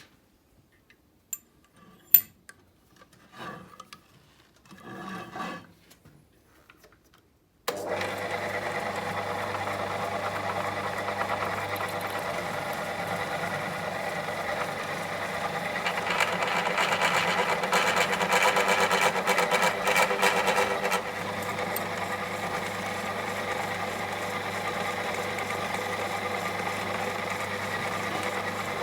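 A few light knocks and clicks. About eight seconds in, an electric drill switches on abruptly and runs steadily with a hum, growing louder for about five seconds in the middle.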